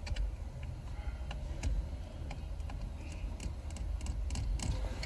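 Irregular light clicks and taps, a dozen or so spread unevenly, from tools and parts being handled at the steering column, over a low rumble.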